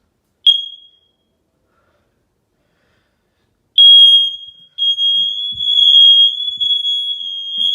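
Smoke alarm being tested: a single short high chirp about half a second in, then, after a few seconds of quiet, the alarm sounds a loud, steady high-pitched tone, broken once briefly just after it starts.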